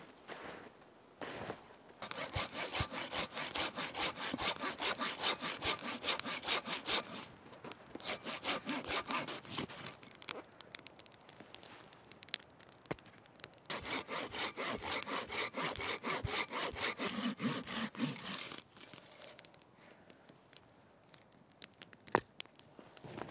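Hand saw cutting through wood with quick, even back-and-forth strokes, in three bouts with short pauses between them.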